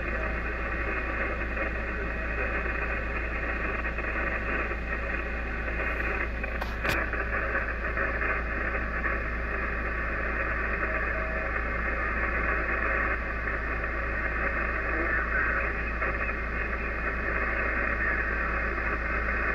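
Steady static hiss from an Icom IC-756PRO HF transceiver's speaker on the 40-metre amateur band, as the receiver is tuned slowly up the band with no station coming through. One sharp click about seven seconds in.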